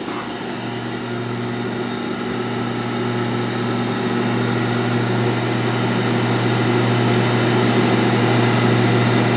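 Feed conveyor drive of a Butfering wide belt sander running at its top feed speed: a steady hum that grows gradually louder, nice and quiet.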